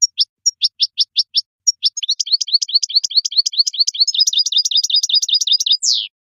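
European goldfinch singing: a run of separate sharp, high notes, then about two seconds in a fast, even trill of rapidly repeated notes lasting nearly four seconds, which ends on a single falling note.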